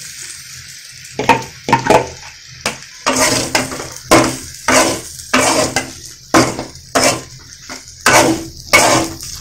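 Metal spatula scraping and stirring meat-and-potato singara filling in a kadai, in repeated strokes about once or twice a second starting about a second in. A steady sizzle of frying in a little oil lies underneath.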